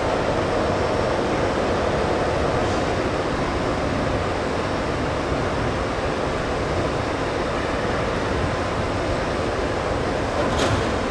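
Train running on the tracks in a station, a steady rumble, with faint steady tones in the first few seconds and a brief sharp click near the end.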